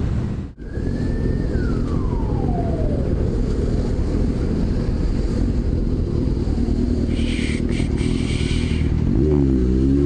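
Motorcycle engine running and road noise while riding slowly in traffic. About a second in, a single high tone glides down in pitch, and near the end the engine revs up and back down briefly.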